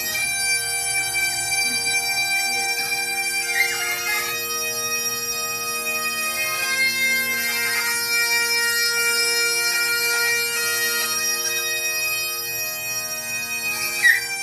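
Bagpipe music played back from a noise-conditioning sound CD: steady drones under a changing chanter melody. There is a brief sharp sound just before the end.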